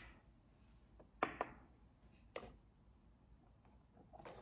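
Light knocks and clicks of small objects being picked up and set down on a hard tabletop: two close together about a second in, one more near the middle, and a louder clatter near the end.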